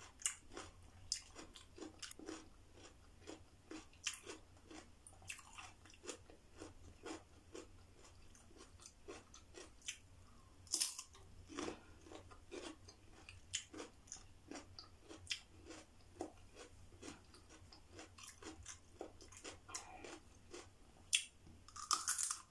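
Crunching and chewing of raw vegetables, short crisp crunches a couple of times a second, with louder bites about halfway and near the end.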